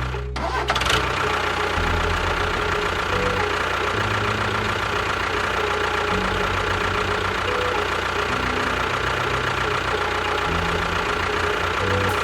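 A small engine running steadily with a knocking rumble, over background music with a low bass line that changes note every second or two.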